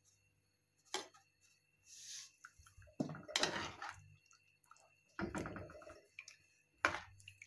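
A ladle stirring a thick curry in a pan: two spells of wet stirring and scraping, with sharp knocks of the ladle against the pan about a second in and near the end.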